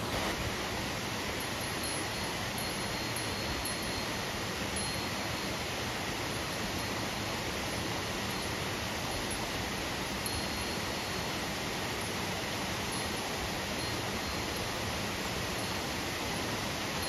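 Steady rushing of a mountain river, with faint, short high ringing tones coming and going over it.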